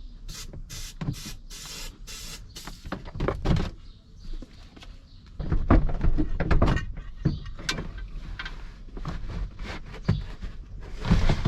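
Several short hisses of a WD-40 aerosol can spraying into a rust-seized truck door latch. After that come loud clunks and metallic knocks as the latch and door are worked and pried.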